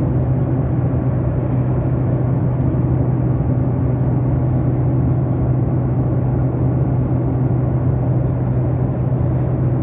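Steady drone inside an airliner cabin, engine and airflow noise with a constant low hum.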